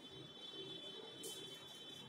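Quiet room tone: faint hiss with a thin, steady high-pitched whine, and a brief soft hiss a little after the middle.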